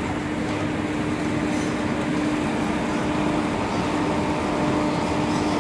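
Indian Railways WAP-4 electric locomotive passing slowly. It gives a steady hum holding one low tone over a broad, even rumble.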